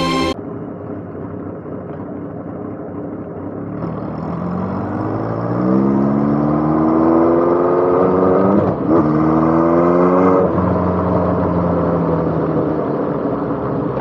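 Motorcycle engine accelerating hard, its pitch climbing steadily, dipping briefly at a gear change and climbing again before easing off to a lower steady run. Road noise lies under it throughout.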